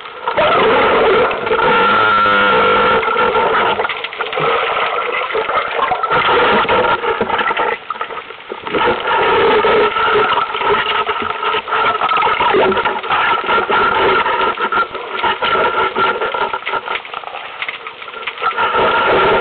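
Underwater noise picked up by a camera mounted on a speargun: a dense, steady crackling hiss with a constant whine running through it.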